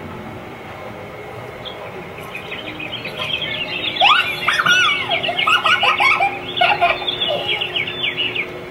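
Birdsong sound effects played by an animated art display: quick chirps, twitters and sweeping whistles. They build from about two seconds in, are loudest in the middle, and stop shortly before the end, over a steady low hum.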